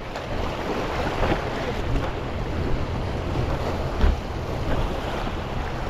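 Small waves washing and splashing over a rock ledge, with wind buffeting the microphone. A single thump about four seconds in.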